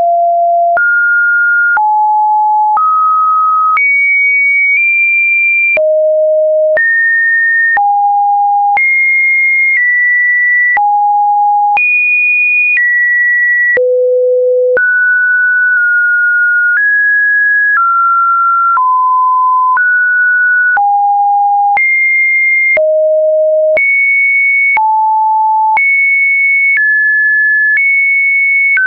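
Synthesized pure sine-wave test tones, one steady beep after another, each jumping to a new random pitch about once a second with a faint click at each change: the automatically generated audio of a YouTube upload test video.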